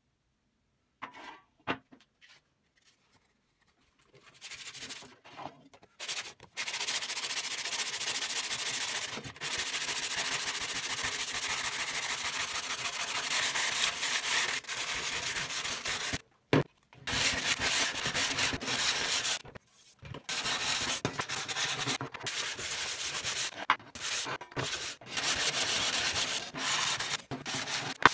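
Abrasive pad rubbed by hand over a sheet-metal barbecue panel: steady back-and-forth scrubbing that starts about four seconds in and stops briefly a few times, after a few faint handling clicks.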